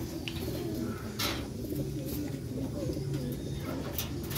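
Several domestic pigeons cooing, low overlapping coos, with a brief noise about a second in.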